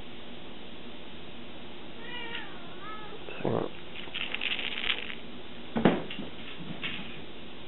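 A Savannah kitten gives a few short, wavering meows about two seconds in. Later come some rustling and one sharp knock about six seconds in, the loudest sound.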